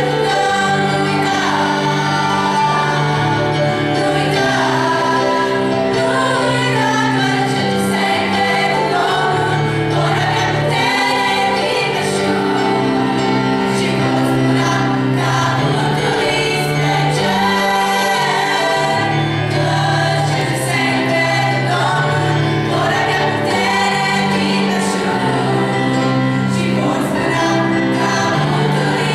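A girls' vocal group singing a song together, with a keyboard playing sustained low chords underneath.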